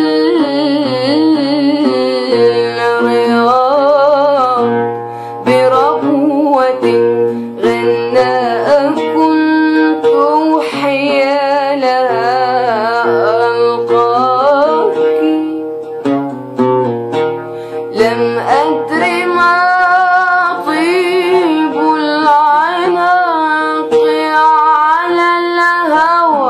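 A woman singing an Arabic song in a wavering, ornamented line, accompanying herself on a plucked string instrument; her voice drops out briefly a few times while the instrument carries on.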